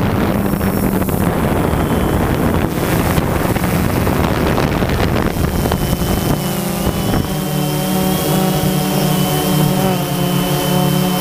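DJI Phantom 2 quadcopter's motors and propellers running in flight, a steady drone mixed with wind rushing over the microphone. About six seconds in, the wind eases and the motors' even hum and a thin high whine come through more clearly.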